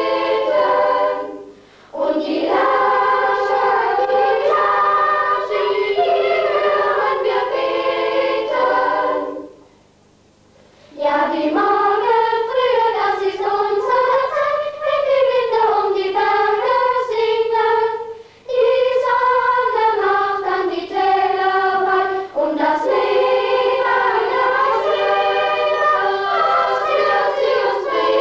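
A choir singing a song in held phrases, broken by short pauses, the longest about ten seconds in, over a faint steady low hum.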